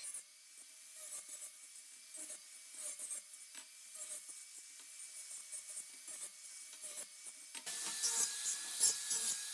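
Electric grinder whining steadily while it scrapes against steel in quick irregular strokes. About three-quarters of the way through, the motor's pitch drops and the grinding grows louder as the tool is pressed harder into the metal.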